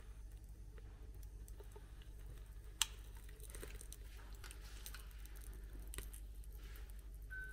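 A sharp click about three seconds in and a fainter one near six seconds from a long-nosed utility lighter being handled as it lights a tin-can paraffin trench candle, over a low steady hum.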